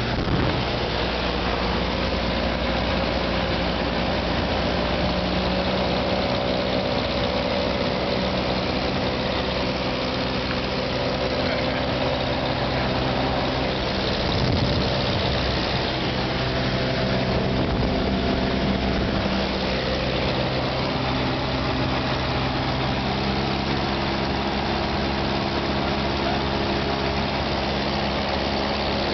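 Piston engine and propeller of a single-engine high-wing light aircraft heard from inside the cabin in flight: a steady drone over a rush of noise, its pitch shifting slightly a few times.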